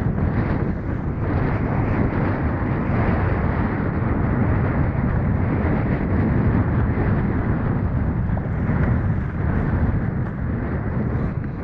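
Steady wind buffeting the camera's microphone, mixed with water rushing and splashing along the hull of an RS Aero sailing dinghy moving fast.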